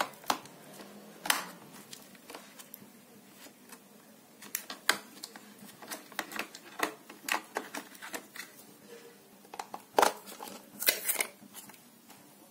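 Scattered sharp plastic clicks and taps as a toy RC car's battery pack and plug are handled and pressed into its battery compartment, with the loudest cluster of clicks about ten and eleven seconds in.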